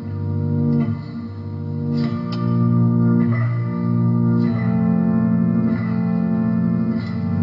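Guitar playing sustained chords, a new chord struck and left to ring every second or two.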